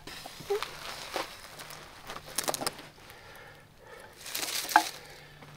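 Rustling and a few light knocks as a man crouches and sits down on grass beside loose wooden 2x4 boards.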